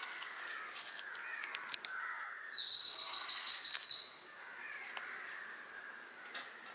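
Crows cawing repeatedly in the background, with a few faint clicks. About two and a half seconds in, a high, steady shrill note sounds for about a second and a half; it is the loudest thing heard.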